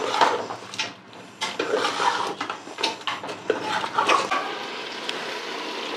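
Chicken pieces being mixed by hand in wet masala paste inside an aluminium pressure cooker: irregular wet squelching and rustling with small knocks against the pot, settling into a steadier hiss for the last couple of seconds.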